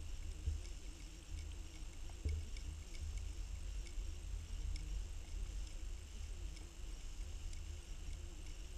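Muffled low rumble of water moving past an underwater fishing-line camera as it is pulled through the water, with faint scattered ticks and a thin steady high hiss.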